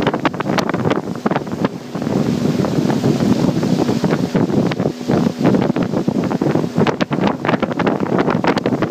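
Heavy wind buffeting the microphone on a fast-moving motorized river canoe, with water rushing and splashing along the hull.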